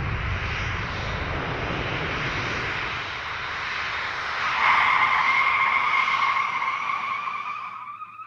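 Airliner heard from inside the cabin, rolling out on the runway after landing: a steady rush of engine and air noise, with a high, steady engine whine joining about halfway through. It cuts off abruptly near the end.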